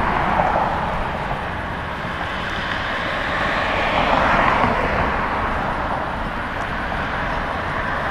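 Road traffic on a busy street: a steady rush of passing vehicles that swells as one goes by about four seconds in, then eases off.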